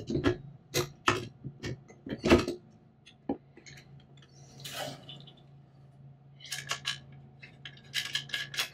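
Metal clicks and clanks from a monitor's swing-arm wall mount and bracket as the screen is handled and moved on it. A quick run of sharp knocks comes in the first couple of seconds, a short scrape about halfway, then more clicks near the end, over a faint low hum.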